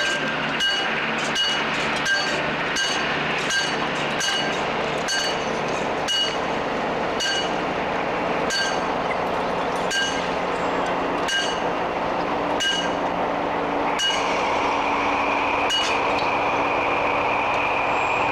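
Level-crossing warning bell of a hand-worked barrier ringing in single strikes, about seventeen in all, spaced wider as it goes on. Toward the end a diesel locomotive approaches, a steady whine and engine noise rising.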